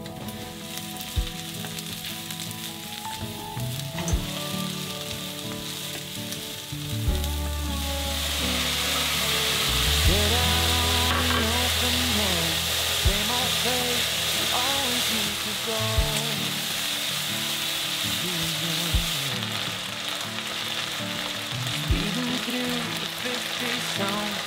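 Onions and sliced mushrooms frying in oil in a nonstick sauté pan, a steady sizzle that grows louder about a third of the way in and then holds.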